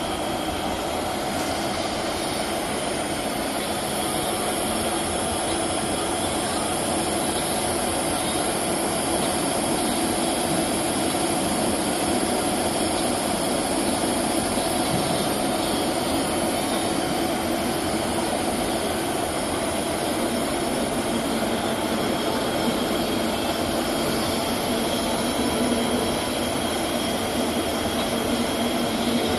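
Milling machine boring out the inner hole of a cold-forming die: a steady spindle whine with several held tones over constant cutting noise.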